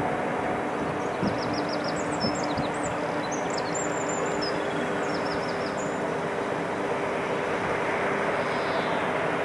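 Steady industrial roar from the nuclear power station's plant, with several steady low hums running through it. A small bird chirps in quick repeated series over it in the first half.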